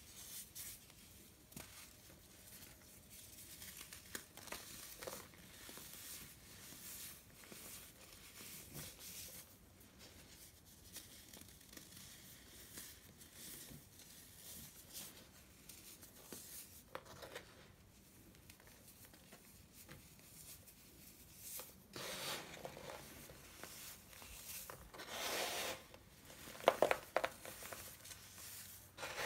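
Hands crushing and squeezing baked baking soda chunks and powder, with soft crunching and crumbling that gets louder in the last several seconds, including a few sharp crackles near the end.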